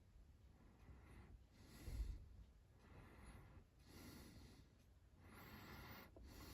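Near silence: room tone with a few faint breaths, one about every two seconds.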